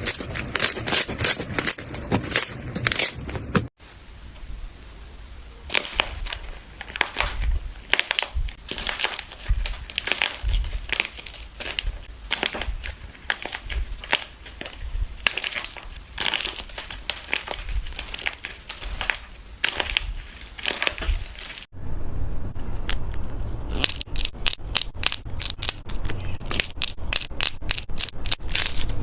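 Crunchy slime being squeezed and pressed by hand, giving a dense run of crackling, popping clicks. The sound breaks off abruptly twice and resumes with a slightly different texture.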